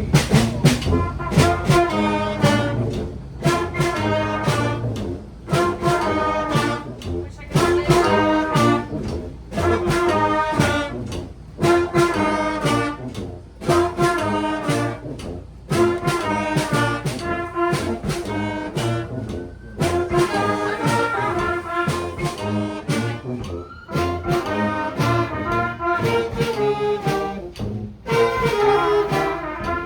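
A brass band playing a tune, the horns in short repeated phrases with brief breaks between them.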